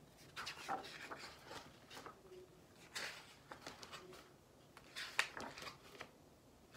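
Pages of a hardcover picture book being opened and turned by hand: a few soft paper rustles and handling noises, the sharpest about three seconds in and about five seconds in.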